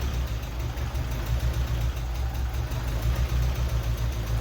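Freshly rebuilt Mazda Miata 1.6-litre inline-four engine idling steadily on its first run after the rebuild.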